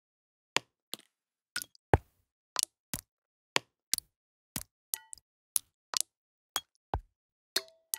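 Single water drops striking different objects one after another, such as a glass, a leaf, a fingertip and stones. Each drop is a separate sharp tap, about two a second with a few close pairs, and some of the taps leave a brief ringing note.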